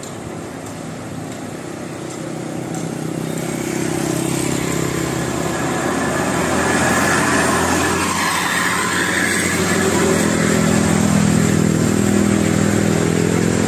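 Motor vehicle engine running, growing steadily louder for about the first seven seconds as it draws near, then holding loud.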